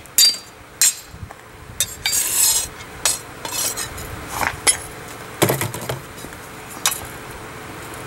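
Blacksmith's hammer striking a steel plate on an anvil: a few sharp metallic clanks at irregular intervals, a second or more apart, each with a short ring.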